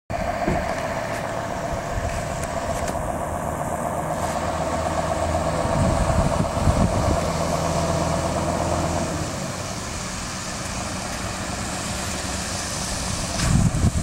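Diesel engine of a heavy tractor-trailer running slowly as it approaches with a railcar on its low-bed trailer: a steady low hum with a higher steady tone that fades out about nine seconds in.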